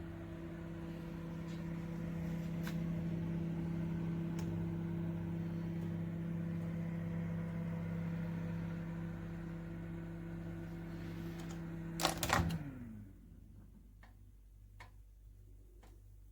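Bomann built-in microwave oven running with a steady electrical hum, then stopping with a couple of sharp clicks about three-quarters of the way through, its hum winding down in pitch. A few faint ticks follow.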